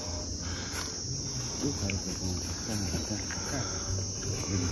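Steady high-pitched chorus of insects trilling without a break, with faint talk in the background.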